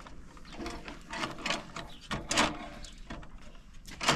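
Irregular light knocks, clatters and scrapes, the loudest about two and a half seconds in.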